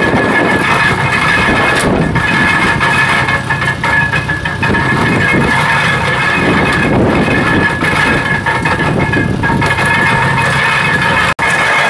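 International Harvester (IHC) hay baler running: loud, continuous machinery clatter with a steady high-pitched whine over it. The sound cuts out for an instant near the end.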